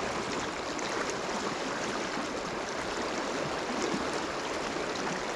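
Water of the Provo River flowing steadily through a run: a continuous, even rushing noise with no breaks.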